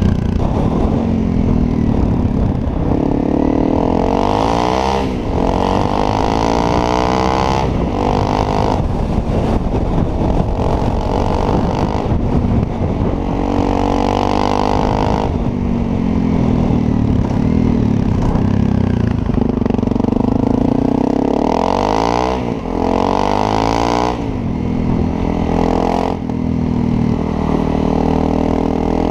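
Single-cylinder engine of a 2016 Honda CRF250L running through a Yoshimura RS-4 exhaust, revved up and dropping back several times, its pitch rising and falling in repeated sweeps.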